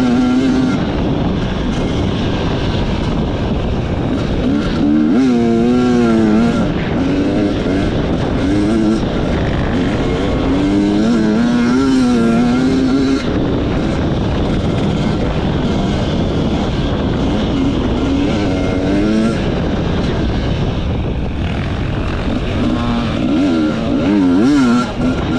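Enduro motorcycle engine being ridden hard, its note rising and falling again and again as the throttle is worked, over a constant rushing noise.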